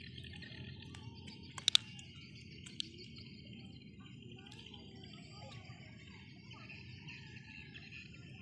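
Insects and birds chirping steadily over a low background noise, broken by two sharp pops in quick succession about a second and a half in and a smaller click near three seconds.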